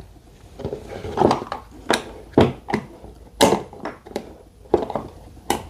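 Plastic wire-harness connectors and a toy car's gear selector switch being handled and plugged together: irregular sharp clicks and knocks, roughly every half second to a second.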